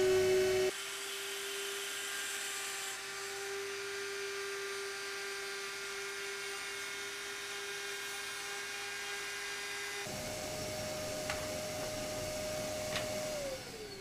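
Raitool 800 W electric trim router running at a steady high whine while its bit cuts a shallow recess along a board edge. Two light clicks come near the end, then it is switched off and its pitch falls as the motor winds down.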